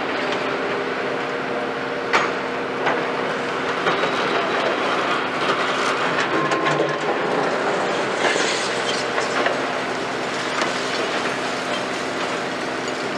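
Hitachi 210 hydraulic excavator's diesel engine running steadily as the machine swings back and digs its bucket into demolition rubble, with a few sharp knocks, the first two about 2 and 3 seconds in, and the clatter of broken concrete.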